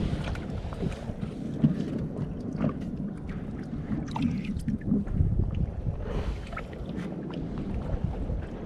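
Wind buffeting the microphone with a low, uneven rumble over the sea, with a few light knocks.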